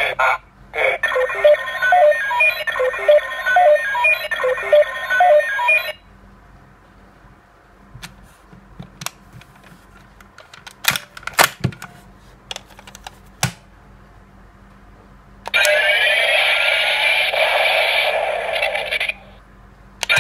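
DX Ixa Knuckle toy playing electronic sound effects through its small speaker: a run of short beeping tones stepping in pitch, then several seconds of plastic clicks from its parts being pressed, then a loud buzzing effect with sweeping tones starting about three-quarters of the way through.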